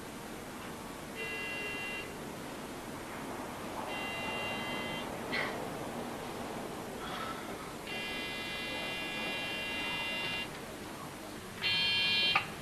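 Electric doorbell buzzer rung four times, each ring a steady buzz. The third is held about two and a half seconds, and the last, near the end, is the loudest.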